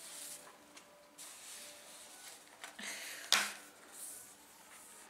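Rustling and handling noises, with one sharp knock a little over three seconds in.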